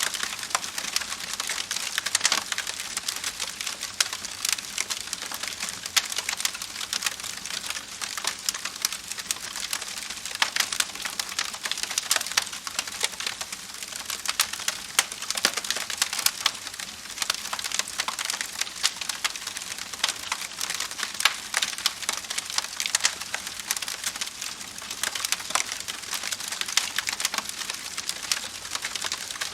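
Wood fire burning and crackling, a dense stream of small snaps and pops with sharper cracks scattered throughout.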